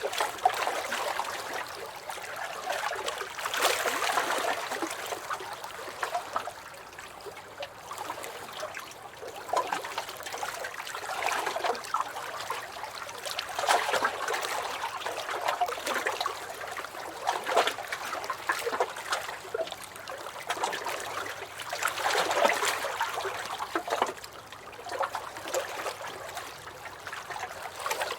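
Small waves washing in and draining back over a shore, swelling every three to four seconds with a fizzing, trickling wash between the swells.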